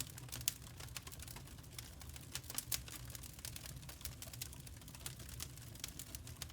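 Wood fire crackling: a dense run of irregular small snaps and pops over a steady low rumble of the flames.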